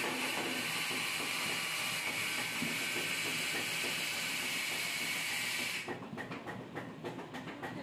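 Spice-grinding mill (pulverizer) running steadily as it grinds roasted dried red chillies and spices into sambar powder. About six seconds in, the even noise turns into an uneven, clattering rattle.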